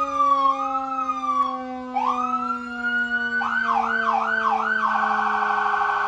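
Whelen electronic siren being tested, stepping through its tones: a slow rise and fall, a rising sweep about two seconds in, four quick yelp cycles, then a very fast warble. Underneath, a lower siren tone slowly winds down in pitch.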